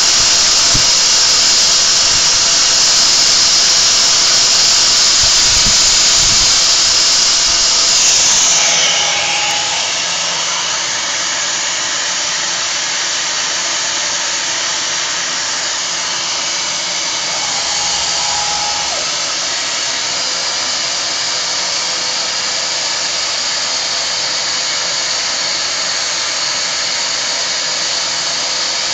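Machining spindle on a KUKA KR125 industrial robot arm running at speed: a loud, steady high hiss that eases somewhat about eight seconds in, with a faint steady tone joining it about two-thirds of the way through.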